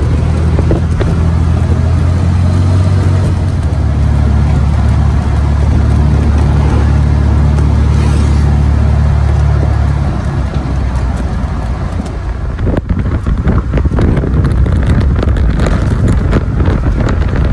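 A convoy military vehicle's engine running at a steady speed with a constant low drone and road noise. About ten seconds in the drone drops away, leaving rattling and wind noise.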